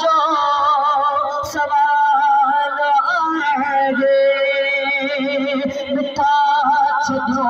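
A man singing a Sindhi naat into a handheld microphone, with long, wavering held notes and a short pause about six seconds in.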